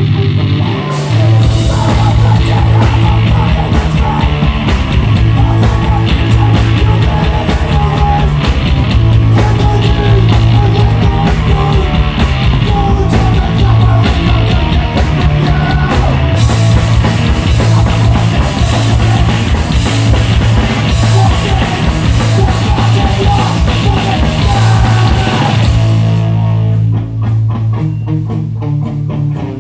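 Hardcore punk band playing live and loud: distorted electric guitar, bass and drum kit. The full band comes in about a second in, and near the end the drums drop out for a few seconds before crashing back in.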